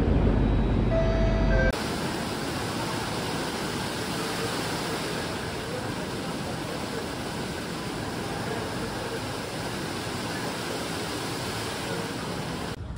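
A metro train carriage rumbles for the first couple of seconds, then cuts to the steady rushing of a tall indoor waterfall pouring from a ceiling opening into a pool below.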